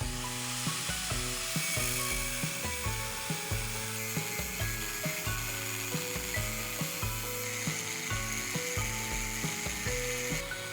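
Background music with a steady beat, over a continuous high rasping hiss of workshop tool work on metal.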